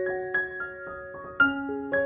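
Gentle background music on piano, single notes struck about four times a second, each ringing on as the next begins.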